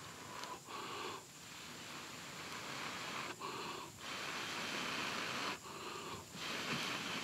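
A person blowing into a smouldering tinder bundle to coax the ember into flame: long hissing blows broken by short pauses for breath about every two seconds.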